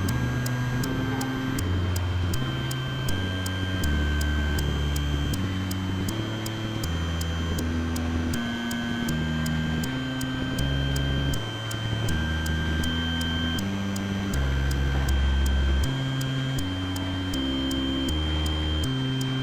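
Electronic synthesizer music: a low, stepping bass sequence under steady high sine-like tones that shift pitch now and then, with an even, fast tick running through the high end.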